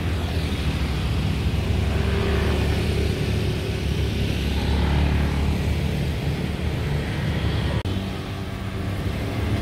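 Road traffic: a steady low engine rumble from vehicles on the street.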